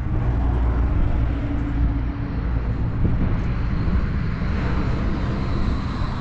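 Heavy engine running steadily with a deep, low drone, typical of a bulldozer's diesel engine.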